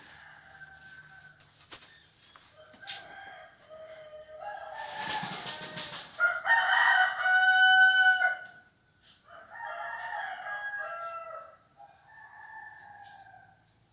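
Rooster crowing several times in a row, the loudest crow in the middle and quieter ones after it.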